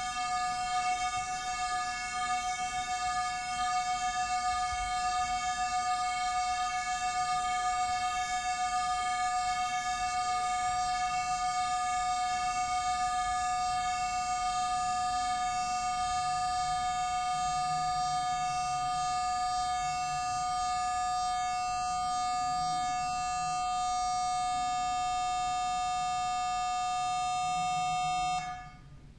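Two KORG MA-1 electronic metronomes held out and sounding together as one steady, high-pitched electronic tone with many overtones, which cuts off suddenly near the end.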